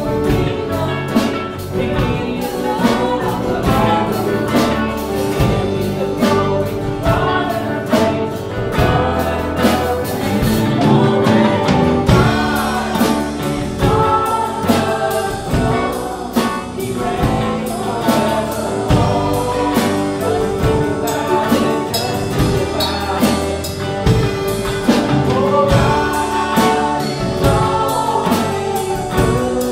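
Live worship band playing a song: singing voices over guitars, piano and a drum kit keeping a steady beat.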